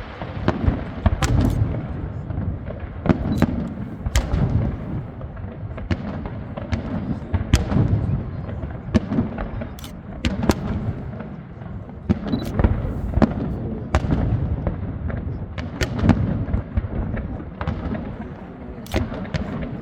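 Aerial fireworks display: many sharp cracks and pops in quick, irregular succession over a continuous rumble of deep booms.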